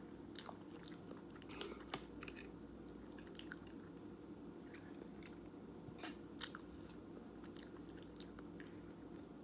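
Faint close-up chewing of ramen noodles in a spicy cheesy jjajangmyeon sauce, with sharp wet mouth clicks and smacks at irregular intervals over a steady low hum.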